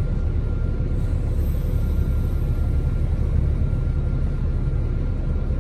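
NJ Transit train standing at the station, its PL42AC diesel-electric locomotive idling: a steady low rumble with a faint steady high whine over it.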